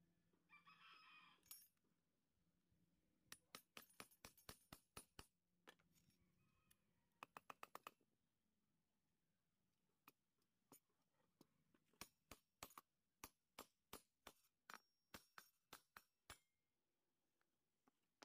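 Irregular runs of sharp taps and knocks, some in quick bursts, as a wooden knife handle is worked down onto the blade's tang against a wooden block. A rooster crows once, briefly, about half a second in.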